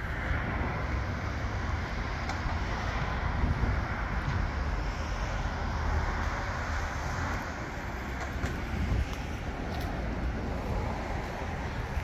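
Steady urban outdoor background noise: an even, deep rumble with no single sound standing out.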